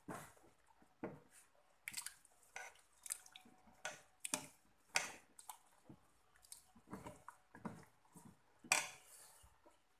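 Metal ladle stirring chunks of meat and potato in a thick sauce in an aluminium pot: irregular wet squelches and light scrapes, about one or two a second, the loudest about nine seconds in.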